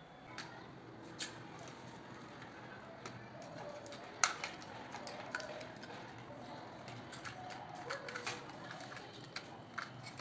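Scattered clicks and knocks of a plastic switch-board plate and a screwdriver being handled and fitted against a wall box, the loudest about four seconds in.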